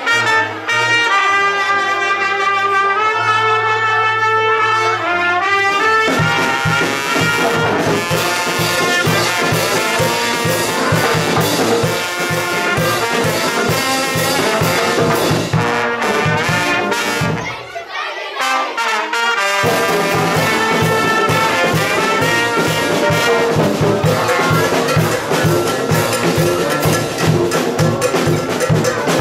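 A live brass band of sousaphone, tubas and trumpet playing a lively tune. About six seconds in a bass drum and snare drum join with a steady beat; near two-thirds of the way the drums and low brass stop for about two seconds, then come back in.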